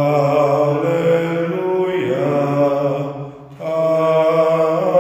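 A man's voice chanting a liturgical text in long, sustained notes, with a brief break for breath about three and a half seconds in.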